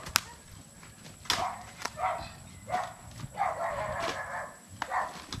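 Garden hoes chopping into soil, a handful of sharp strikes spread across a few seconds, the first the loudest. Short calls, most likely from a farm animal, come in between the strikes, one of them lasting about a second.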